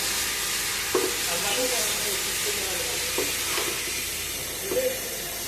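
A few light clicks and knocks of hand work on the fuel-line lock fittings at the fuel filter, over a steady hiss.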